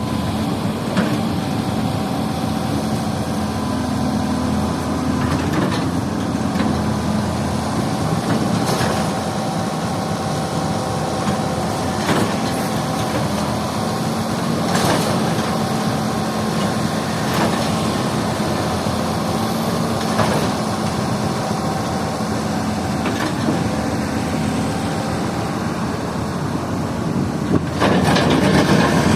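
An excavator's diesel engine runs steadily under work, with a sharp clank every two to three seconds as the machine works. The sound grows louder and rougher near the end.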